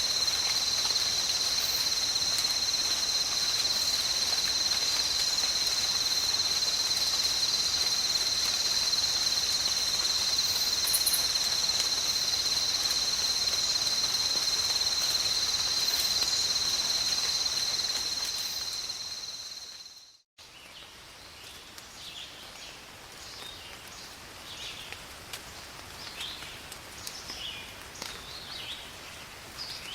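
Steady rain with a shrill insect chorus holding two steady high tones. It fades out about two-thirds of the way through to a moment of silence, then a quieter nature recording starts with scattered short bird chirps.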